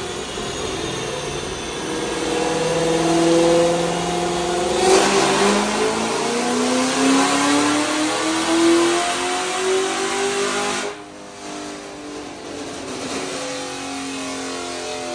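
Magnuson-supercharged 6.2 L LT1 V8 of a 2019 Camaro SS running on a chassis dyno: it runs steadily at first, then about five seconds in goes to full throttle and climbs in revs for about six seconds, and cuts back suddenly near the end. This is a tuning pull on the dyno.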